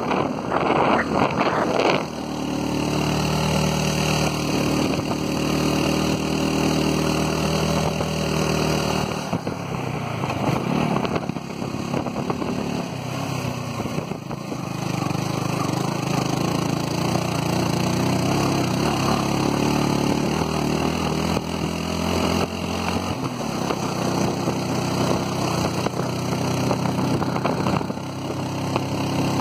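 Motorcycle engine running at cruising speed with wind rush over the microphone; the engine note changes pitch a few times, around nine and thirteen seconds in.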